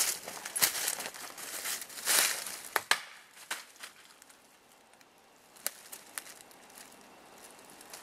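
Dry twigs and brush crunching and crackling in several short bursts, with two sharp snaps close together about three seconds in, then only a few faint scattered clicks.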